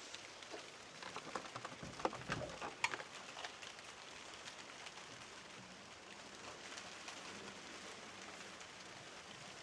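A few light clicks and knocks over the first three seconds or so as the door of a newly fitted fridge is opened to check that it clears its cabinet, then a faint steady hiss.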